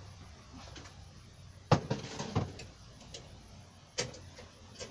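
Metal Blizzard hurricane lanterns being handled and shifted about: a sharp knock about a second and a half in, a few smaller clunks right after, and another sharp knock near the end.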